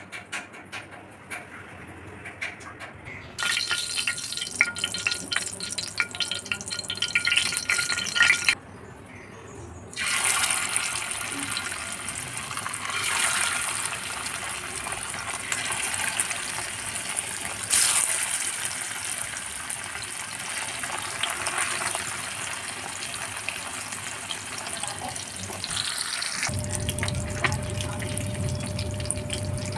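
Masala-coated fish shallow-frying in hot oil on an iron pan, a dense sizzling and crackling that starts a few seconds in. It breaks off abruptly at cuts and comes back. A low steady hum joins it in the last few seconds.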